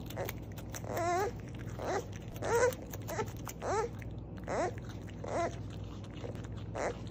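Beaver calling: a series of about eight short, wavering calls, roughly one a second, over a steady low hum.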